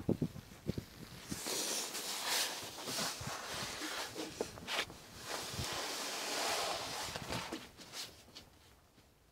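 Footsteps and rustling through dry grass and undergrowth, with a few sharp knocks from the phone being handled about the first second. The rustling fades near the end.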